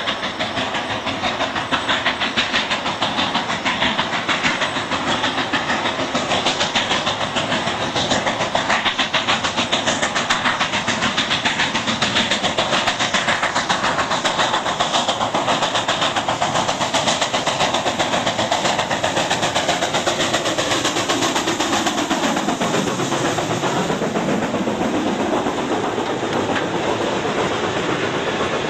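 Steam locomotive working hard as it approaches and passes, a fast, even beat of exhaust chuffs over steam hiss. Past the middle the sound sweeps down in pitch as it goes by, and the passenger coaches roll past with wheels clicking over the rail joints.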